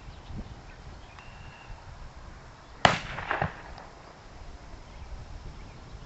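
A single sharp gunshot just before the middle, with weaker cracks trailing for about half a second after it.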